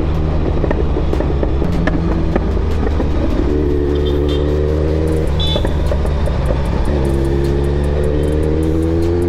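Kawasaki Z900 inline-four engine and exhaust under way, with a steady low drone. Twice the engine note climbs gently in pitch for a second or two as the bike accelerates.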